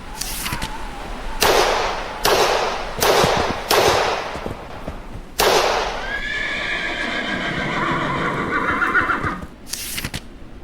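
Sound effects: a run of about six short, sharp bursts, then a horse whinnying for about three and a half seconds, with two more short bursts near the end.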